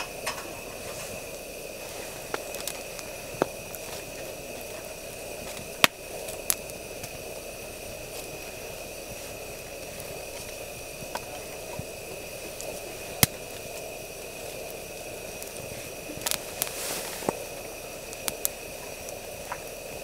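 Wood fire burning in a mini fire pit: sharp pops and cracks every second or two, two of them much louder, over a steady hiss.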